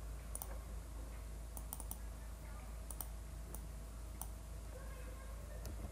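Scattered clicks of a computer mouse and keyboard, a few in quick succession, over a faint steady low hum.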